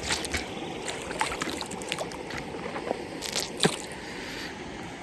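Running water of a stream with small splashes and trickles scattered throughout.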